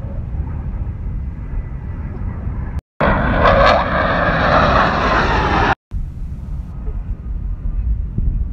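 Military jets flying over, heard on a phone with wind rumbling on the microphone. A few seconds in, after a cut, a much louder jet roar lasts about three seconds and then stops suddenly at another cut, leaving the fainter jet sound and wind rumble.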